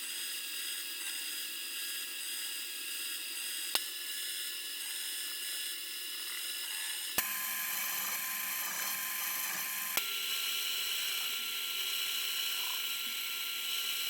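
Mini lathe running, its motor giving a steady high-pitched whine, while the metal cap stock is machined. The sound changes abruptly with a click about 4, 7 and 10 seconds in, where short clips are joined.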